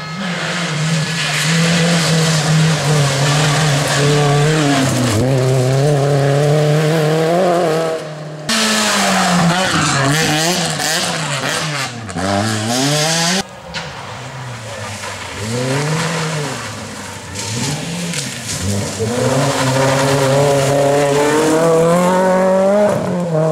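Rally cars driven flat out on a tarmac special stage, Renault Clios among them: the engine note climbs and drops again and again with gear changes and lifts. The sound cuts sharply twice as one car's pass gives way to the next.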